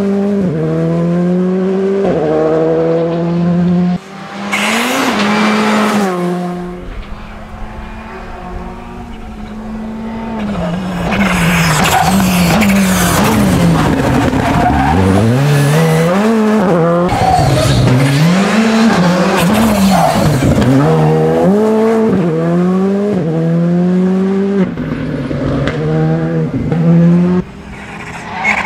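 A Škoda Fabia rally car's turbocharged four-cylinder engine revving hard in several passes. In the first seconds its pitch climbs again and again through quick upshifts. In the second half the revs rise and fall rapidly as the car brakes and accelerates through corners, and the sound cuts off sharply at a couple of points.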